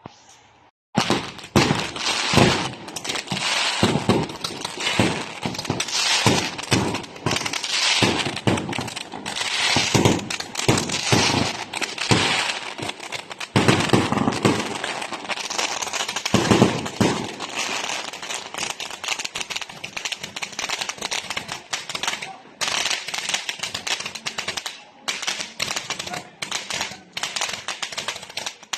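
A long string of firecrackers going off in a dense, rapid crackle of pops, with louder bangs mixed in. The crackle thins out with more gaps near the end.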